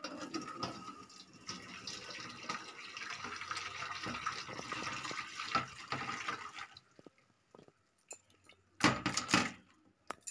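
Whey from freshly split milk pouring and splashing through a perforated stainless-steel strainer for about seven seconds, draining the chhena curds. Near the end, a few loud metal knocks as the pan is tapped against the strainer to tip out the last curds.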